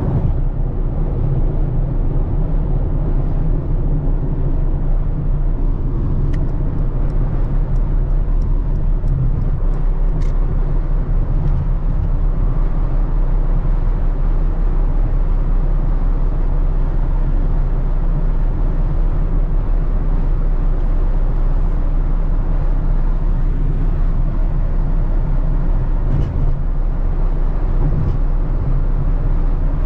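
Mercedes-AMG GT63 S's twin-turbo V8 and tyres during steady driving: an even, deep engine and road rumble with no hard revving.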